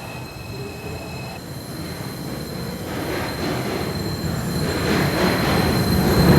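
New York City subway 4 train approaching the station. Its rumble grows steadily louder, with a steady high-pitched squeal from the wheels on the rails.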